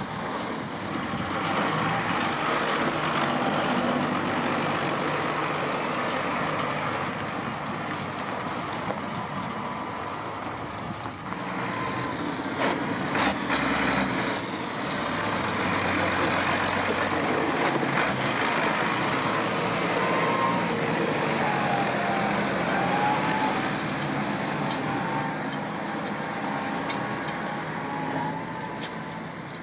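Diesel farm tractors driving past one after another, their engines running at a steady rumble. There are a few sharp knocks about halfway through.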